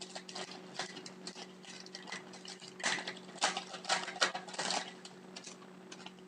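Trading cards being handled and slid past one another: a run of quick, irregular paper-card scrapes and flicks, busiest about three to five seconds in, over a faint steady electrical hum.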